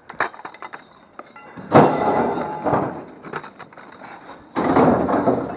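A few quick knocks and clicks, then two loud crashing scrapes about a second long each, some three seconds apart.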